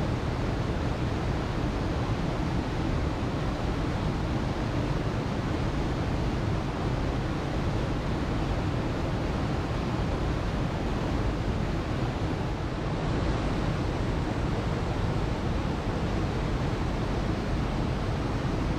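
Waterfall: water falling and splashing in a steady, unbroken rush, heaviest in the low end.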